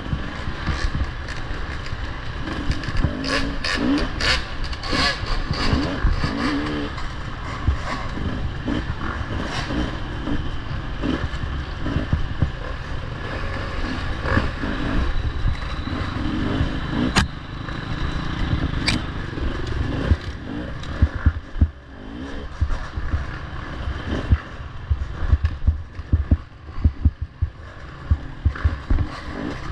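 Dirt bike engine being ridden in an off-road race, revving up and easing off, with frequent knocks and clatter.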